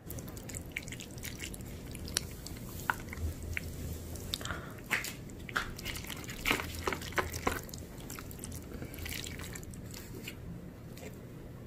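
Wooden chopsticks stirring and lifting glass noodles and chicken in a thick, creamy rosé jjimdak sauce in a plastic takeout tray: scattered wet squishes and light clicks against the tray, busiest in the middle and thinning out near the end.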